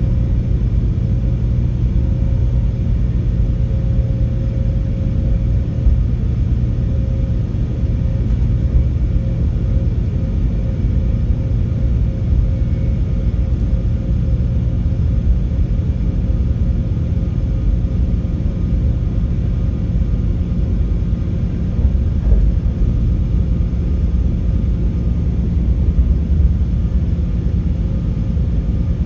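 Class 196 diesel multiple unit running, its MTU 6H 1800 inline-six diesel engines and the rail rumble giving a steady low drone.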